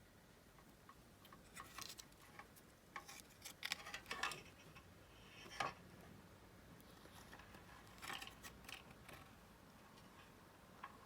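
Faint, scattered light clicks and clatter of small hard objects being handled, in two bunches with a sharper click between them.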